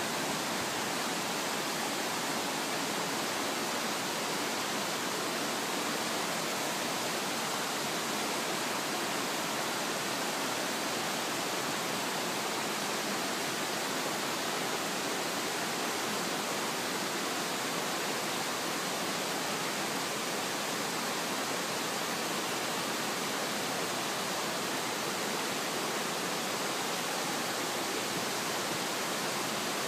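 Steady rush of a shallow river cascading over rock ledges, an even noise that holds level throughout.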